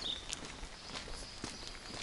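Footsteps of a hiker walking up a wet paved road. A bird's short, high, stepped-down chirping phrase sounds right at the start, and a thin high steady note runs through the middle.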